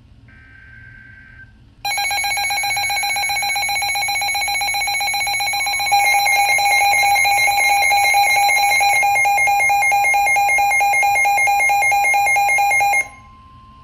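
Midland NOAA weather alert radios sounding their warning alarm for a Severe Thunderstorm Warning: after a brief burst of the broadcast's digital alert-header noise, a loud, rapidly pulsing electronic beep starts about two seconds in, gets louder about six seconds in as both radios alarm together, and cuts off near the end, leaving a faint steady alert tone from the broadcast.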